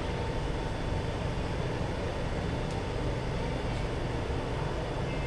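Steady low rumble and hiss of a metro train in an underground station, with a faint steady tone and a few light ticks.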